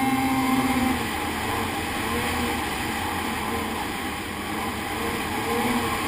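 A 2015 Ski-Doo Summit 600 snowmobile's two-stroke engine running at speed, its note high and steady for about the first second, then rising and falling as the throttle changes, with a rush of wind and track noise underneath.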